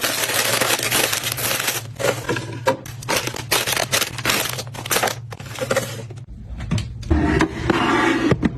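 Plastic packaging crinkling and rustling as groceries are handled, a dense run of crackles that gives way about seven seconds in to heavier, fuller handling noise.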